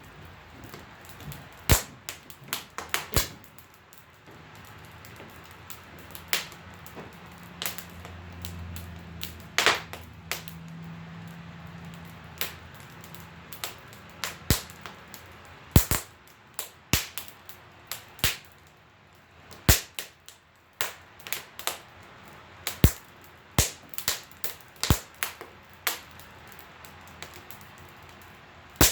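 Wood fire crackling in a wood stove: sharp, irregular pops and snaps from burning wood scraps, a few each second at the busiest. A low hum comes and goes in the middle.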